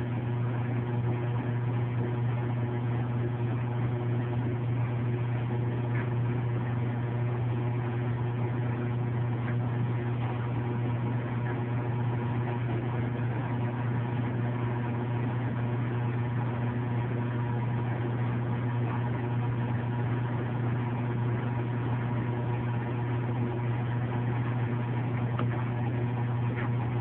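Steady low hum.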